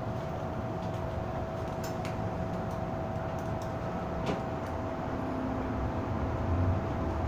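Steady running noise of an MTR M-Train heard from inside the passenger car, with a constant hum over the rumble and a few light clicks about two and four seconds in; the rumble grows a little louder towards the end.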